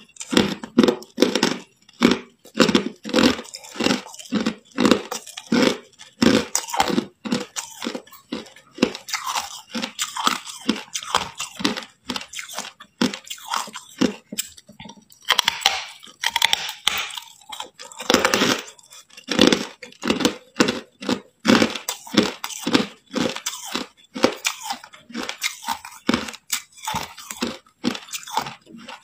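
Hard white ice being bitten and chewed: a steady run of sharp crunches, several a second, as the ice cracks between the teeth.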